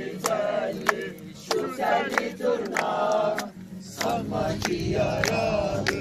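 A group of people singing together, keeping time with steady hand claps.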